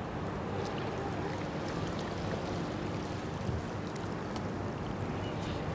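Steady outdoor background noise over the water, with a faint, low, steady hum that fades out near the end.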